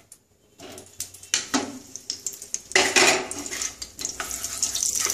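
A spatula scraping butter off a small glass bowl and clacking against the bowl and pan, with a loud burst about three seconds in. From about four seconds in, the butter begins to sizzle steadily as it melts into the hot oil in a nonstick kadai.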